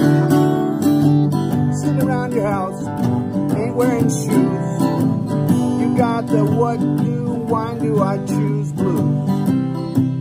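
Two acoustic guitars strummed together while a man sings a melody over them.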